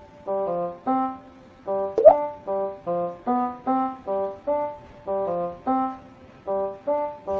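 Background music: a light melody of short, evenly paced notes, with one sharp accent about two seconds in.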